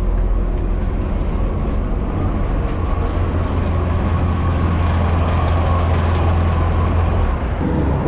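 Bus engine idling with a steady low drone, heard from inside the bus by its open door. The drone drops away near the end.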